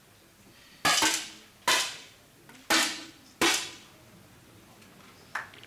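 10 m match air rifles firing in a shooting hall: four sharp shots about a second apart, each trailing off in a short echo.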